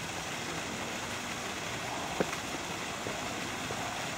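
Steady rushing background noise, like running water or distant traffic, with one sharp click about two seconds in.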